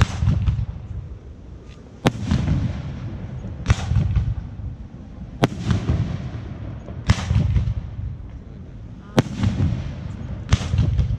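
Fireworks display: seven sharp bangs, about one every one and a half to two seconds, each followed by a low rolling rumble.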